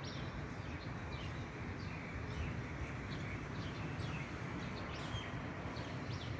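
Outdoor urban ambience: a steady low background noise, with short bird chirps scattered through it.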